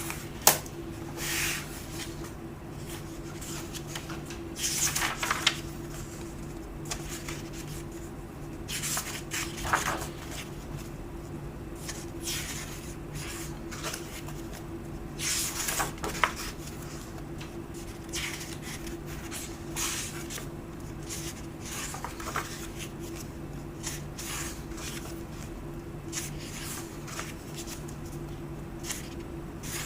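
Pages of a printed book being turned by hand, each turn a short papery swish, coming irregularly every few seconds. A sharp click about half a second in is the loudest moment, and a steady low hum runs underneath.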